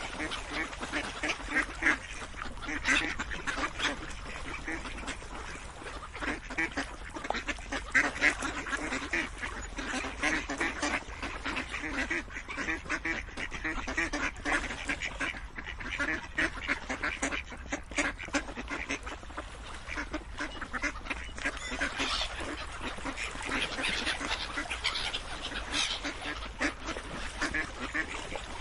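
A group of ducks quacking, many short quacks overlapping in a steady, unbroken chorus.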